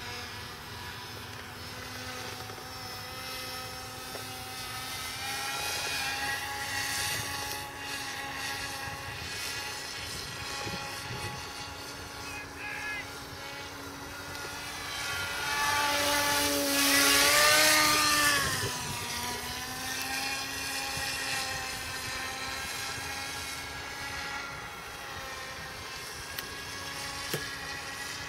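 RC powered paraglider's motor and propeller droning in flight at a steady pitch. About two thirds of the way in it swells louder, and its pitch rises and then drops as it passes close by.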